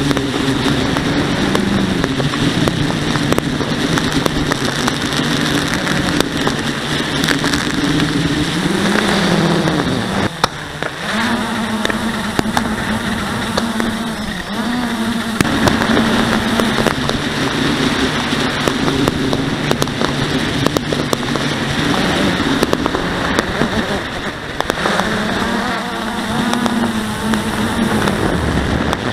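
Blade 350QX quadcopter's four brushless motors and propellers droning through the onboard camera, with rushing air on the microphone; the pitch dips and rises several times as the throttle changes. Occasional faint cracks of fireworks come through.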